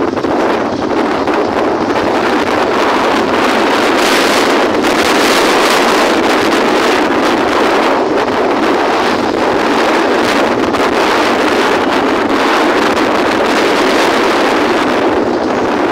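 Loud, steady wind rush on the microphone of a camera moving through street traffic, with vehicle noise beneath it.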